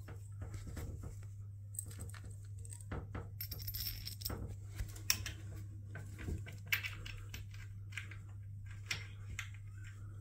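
Small metal fittings clinking and clicking by hand: screws and a brass shower wall plate being picked up and handled, in many short scattered clicks, over a steady low hum.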